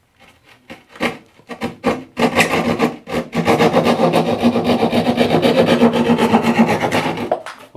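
Hand drywall saw cutting through drywall: a few separate strokes at first, then about four seconds of quick, steady back-and-forth sawing that stops shortly before the end.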